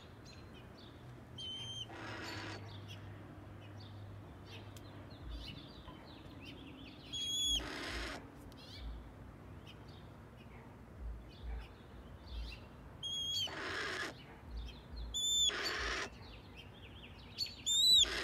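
Red-tailed hawk screeching: about five short, raspy calls a few seconds apart, each led by a thin, high, slightly falling note. The bird is angry and agitated at being kept waiting for its food.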